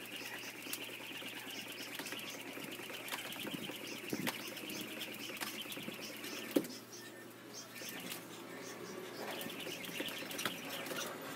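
Jump rope whirring round and ticking against a tiled floor as someone skips barefoot, with a few sharper knocks, the loudest about two-thirds of the way in.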